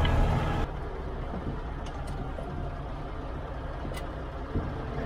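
Tractor engine running, heard from inside the cab: loud for the first half second, then, after a cut, quieter and steady, with a few short clicks about two and four seconds in.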